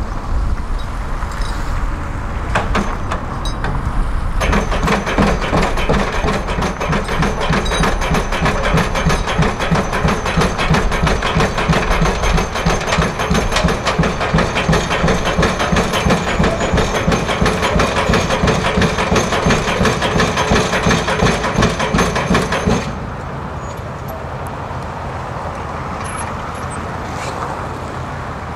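Junttan pile-driving rig's hydraulic impact hammer driving a concrete pile into the ground: a fast, even series of blows over the running engine, starting about four seconds in and stopping abruptly a few seconds before the end, after which only the engine is left running.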